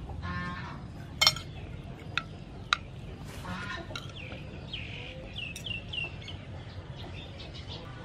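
Metal spoon and fork clinking against a china plate three times, the loudest about a second in. Chickens cluck in the background, and a bird chirps a run of four or five short falling notes around the middle.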